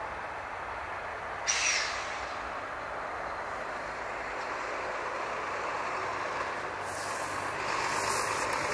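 A Boeing 757's two Rolls-Royce RB211-535E4 turbofans at takeoff power as the jet climbs away after liftoff: a steady jet roar. A brief, sharp burst of noise comes about a second and a half in, and the roar grows a little louder and brighter near the end.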